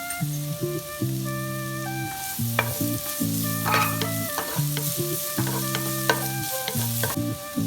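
Stir-frying in a hot wok: food sizzling, with the hiss strongest through the middle, and a spatula clicking and scraping against the pan. Background music with a repeating melodic phrase plays throughout.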